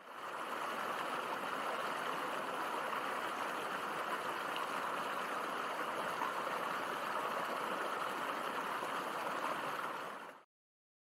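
Shallow, rocky creek running over stones: a steady rush of water that comes in at the start and cuts off suddenly about ten seconds in.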